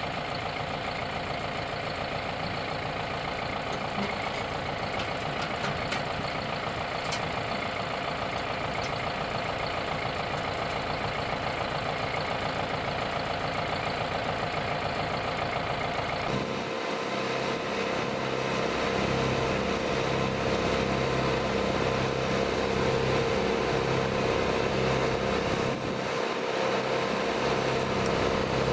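Tractor engine running and driving a PTO-powered Jansen BX-62RS wood chipper. A little over halfway through, the sound changes to a louder, steadier drone with a pulsing low note.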